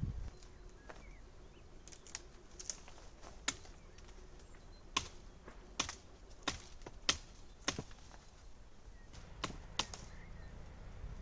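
A series of sharp, separate knocks, about a dozen at irregular intervals over a faint steady background, with hard material being struck by hand.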